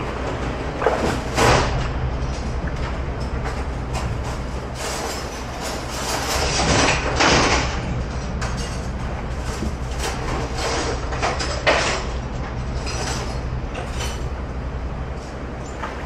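Hand-washing at a commercial dish-room sink of soapy water: irregular splashing and knocks as items are scrubbed. Under it runs a steady low machine hum from the kitchen equipment.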